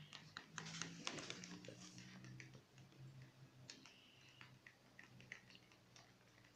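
Faint scattered clicks and light taps from plastic cups of homemade slime being handled, busiest in the first couple of seconds and then sparse, over a faint low hum.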